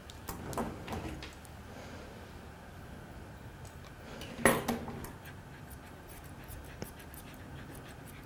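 Faint clicks and clinks of steel grooming shears and a comb being handled and snipping through a Scottish terrier's coat, with one louder clink about four and a half seconds in.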